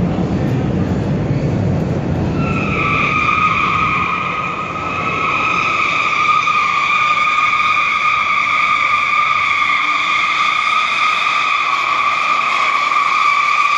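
Pickup truck's tires squealing in one long, steady screech as it slides across smooth concrete, starting about two and a half seconds in over a low rumble.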